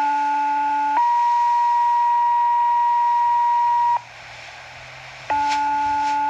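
Fire dispatch two-tone sequential page over a radio. A one-second tone steps up to a slightly higher steady tone held about three seconds. After a short break a second page starts, with another one-second tone near the end.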